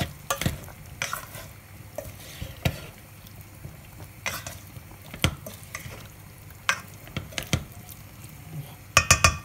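A spoon stirring butter beans and prawns in a stainless steel pot, scraping and knocking against the pot at irregular intervals over a low sizzle of sautéing. A quick run of sharp knocks near the end.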